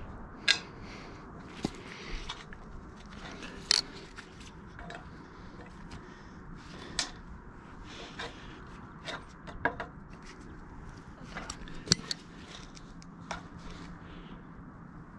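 Aviation tin snips cutting, and a hand seamer bending, a sheet-metal roof flashing: sharp metallic snips and clicks at irregular intervals, about a dozen in all, over the light rustle of the sheet being handled.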